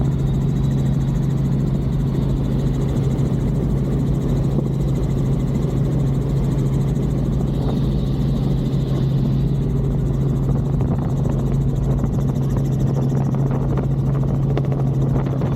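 Tour helicopter in flight: a steady low drone of the rotor and turbine that holds an even pitch and level throughout.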